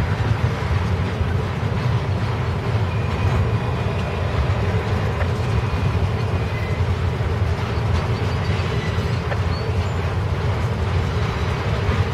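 CSX intermodal freight train rolling past, its flatcars loaded with highway trailers: a steady rumble and rattle of the cars running over the rails.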